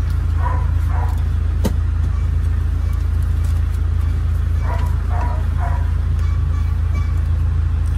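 Steady low rumble of a car idling, heard from inside the cabin, with one sharp click about two seconds in.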